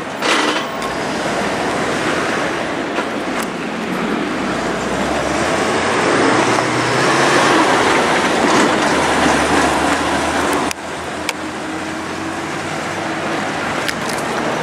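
City street traffic noise. A heavy vehicle passes close by, growing louder toward the middle and then falling away sharply about two-thirds of the way through.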